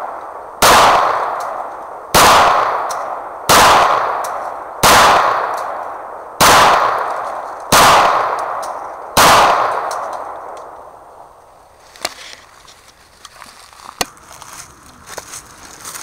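A semi-automatic pistol fired seven times at a steady pace, about a second and a half apart, each shot followed by a long echo through the woods. A couple of faint clicks follow near the end.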